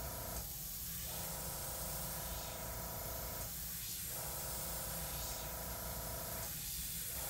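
Dual-action airbrush spraying paint in a steady hiss of compressed air as dagger strokes are laid down on paper.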